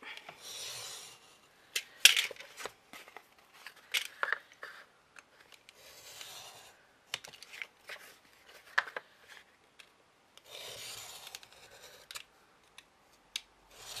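Snap-off craft knife drawn along a metal ruler, scraping through grey card in three long strokes of about a second each. Sharp clicks and taps come between the strokes as the ruler and knife are shifted.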